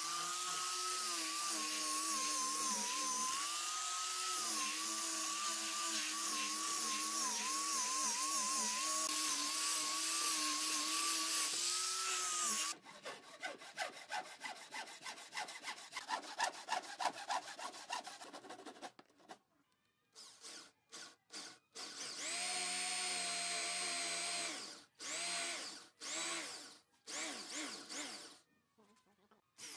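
An angle grinder with a sanding disc runs on laminated wood strips, a steady whine that wavers slightly in pitch, stopping about thirteen seconds in. A hand saw then cuts the end of the strip stack with quick, even strokes for about six seconds. After a short pause, an electric drill bores into a wooden block in one long run and then several short bursts.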